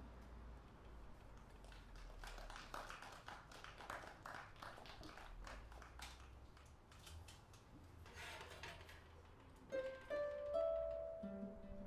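Quiet clicks and rustles of instruments being handled as a flute is set down and a saxophone taken up. About ten seconds in, plucked pedal-harp notes begin.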